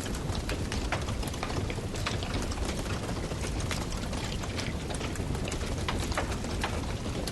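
Wood fire crackling and popping: many irregular sharp snaps over a steady low rumble and hiss of burning.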